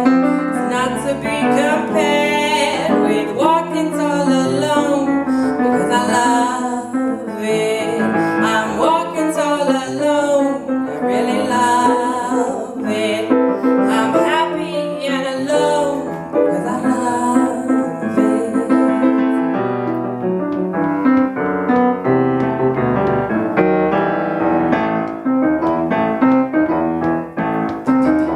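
Live piano ballad with a woman singing over the piano. The voice drops out about two-thirds of the way through, and the piano plays on alone to the close of the song.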